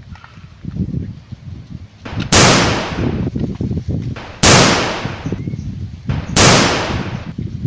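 A gunshot sound effect fires three times, about two seconds apart. Each shot is a sharp bang with a hissing tail that fades over about a second.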